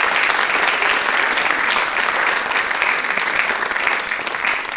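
Theatre audience applauding, a dense, steady clapping that begins to ease off near the end.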